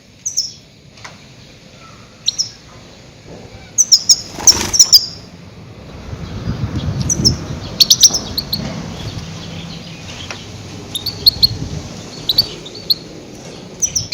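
Goldfinch calls played as a trapping lure: short, high chirps coming in scattered clusters, busiest about four and eight seconds in.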